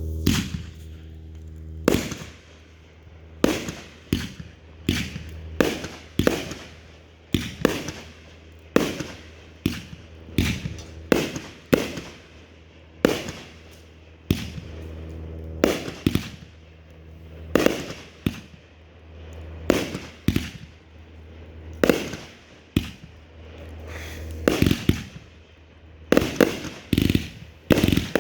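Consumer fireworks cake firing a long run of aerial shots, with sharp bangs about once a second, each trailing off in echo. The bangs come closer together near the end.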